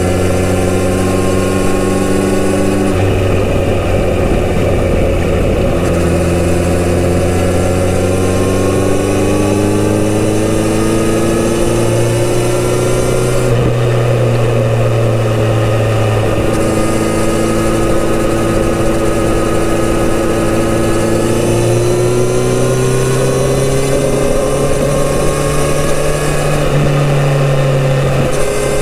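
Kawasaki Z900RS inline-four engine running through its stock full exhaust system while riding on the road. Its pitch climbs slowly and steps back down a few times, over a steady rush of noise.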